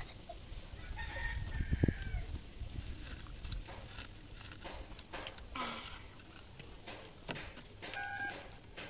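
Chickens calling in the background: a rooster's crow about a second in, with shorter clucks later. Soft clicks and rustles of fingers mixing rice on a plate run underneath.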